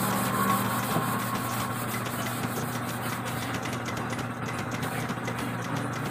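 Air compressor motor running steadily with an even, low hum.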